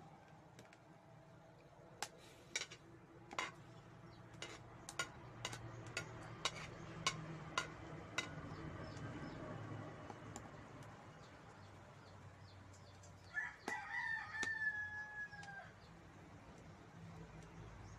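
A rooster crows once, about two-thirds of the way through: one drawn-out call that drops a little at its end. Earlier comes a run of about a dozen sharp clicks over the faint sizzle of food frying in oil in a wok.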